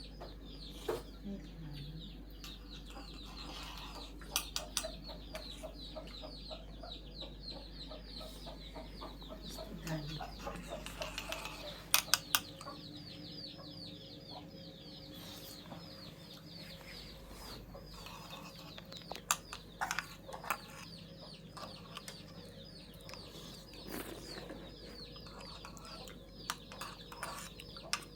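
Chickens clucking and peeping: a quick, continuous run of short falling chirps, with a few sharp knocks, the loudest about twelve seconds in and again around twenty seconds in.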